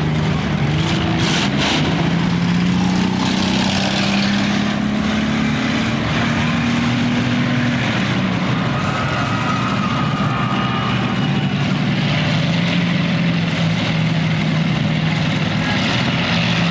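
Several demolition derby car engines running hard together, their pitch rising and falling.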